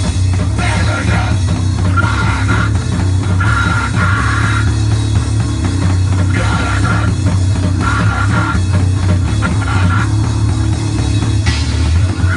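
Grindcore band playing live at rehearsal, loud and heavily distorted: a dense wall of guitar noise over a steady low drone.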